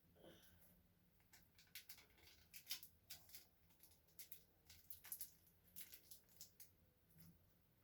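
Faint, scattered crinkles and ticks of a plastic bag and tape being handled at close range.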